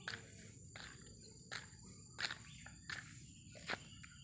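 Footsteps on an asphalt road, about one step every 0.7 s, over a steady, faint, high-pitched insect trill.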